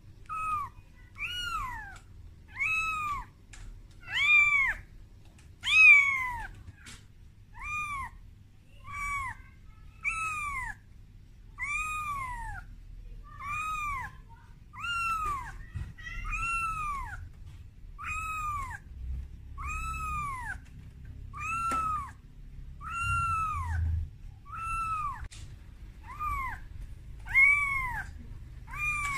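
A very young calico kitten meowing over and over, about one cry every second and a half, each rising and then falling in pitch. These are the kitten's crying calls for its mother, made out of fear.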